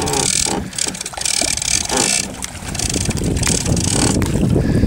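Wind buffeting the microphone on a boat at sea: an uneven low rumble throughout, with a rushing hiss that comes and goes.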